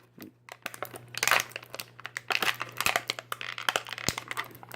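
Toy packaging crinkling and crackling in irregular bursts with sharp clicks as a Bakugan figure is worked out of it by hand.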